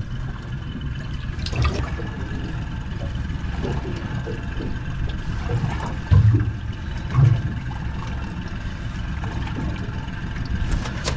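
Water sloshing over a steady low rumble, with two dull knocks about six and seven seconds in.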